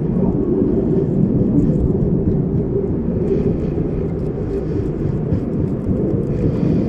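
Steady low rumbling noise with faint light ticks over it.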